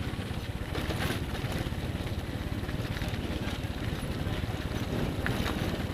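Small single-cylinder motorcycle engine running steadily, a fast, even low pulsing.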